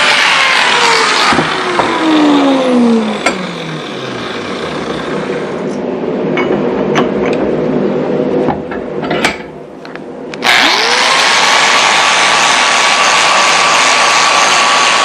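A shop machine's electric motor whining steadily, then switched off and spinning down to a stop over about four seconds. A few light clicks and taps follow. About ten and a half seconds in it is switched back on and spins up quickly to a steady whine.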